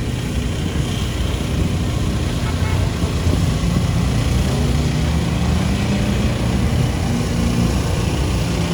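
Off-road 4x4 vehicle's engine running under load, its pitch climbing a little midway and then holding.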